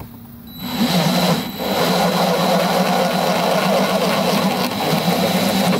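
Craftsman cordless drill running steadily as it bores a hole through the plastic hull of a sit-on-top kayak. It starts up about half a second in and dips briefly about a second later.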